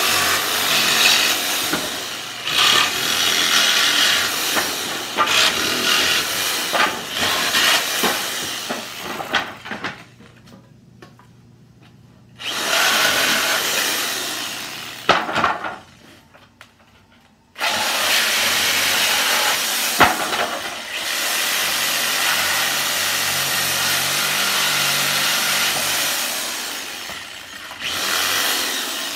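Hyper Tough reciprocating saw with a long Lenox blade cutting through the nails that hold pallet boards. It runs in four bursts: about ten seconds, a pause, about three seconds, a pause, about ten seconds, then a short run near the end.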